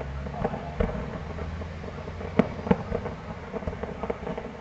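Fireworks display: an irregular run of bangs and crackling pops, the two loudest about two and a half seconds in.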